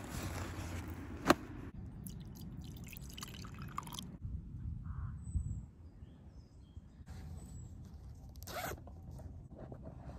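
Handling of a zipped fabric bag and its contents: rustling and a zipper, with one sharp click about a second in, then quieter handling with a short rustle near the end.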